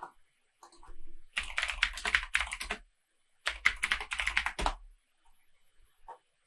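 Typing on a computer keyboard in two quick runs of keystrokes, each a little over a second long.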